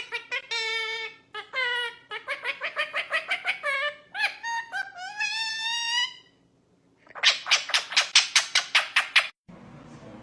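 A bird calling in quick series of short, squeaky pitched notes, with a few rising calls in the middle. Then comes a fast run of sharp chirps, cut off abruptly shortly before the end and followed by faint steady background noise.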